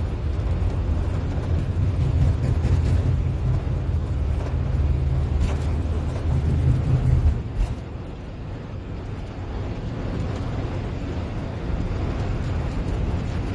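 Airbus A380 takeoff roll heard from the flight deck: a heavy low rumble of the wheels on the runway and the engines at takeoff thrust. About seven and a half seconds in the rumble drops away sharply with a single thump as the aircraft lifts off, leaving a quieter steady rush of engines and air.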